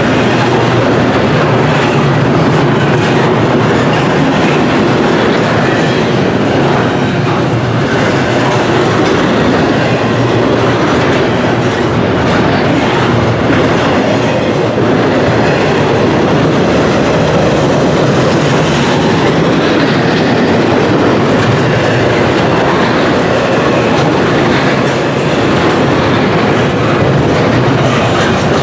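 Norfolk Southern double-stack intermodal container train passing at speed: the loud, steady rumble of its well cars' wheels on the rails.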